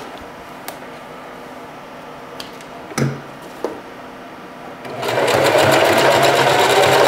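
Singer 4423 Heavy Duty sewing machine starting to stitch about five seconds in and then running fast and steady. Before that, a few light clicks come from handling at the machine.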